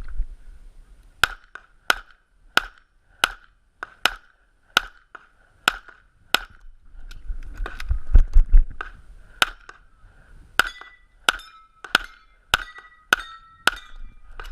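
Rapid gunshots: eight shots about two-thirds of a second apart, a short break filled with low rumbling movement noise, then seven more quick shots, the later ones each followed by a brief ringing tone.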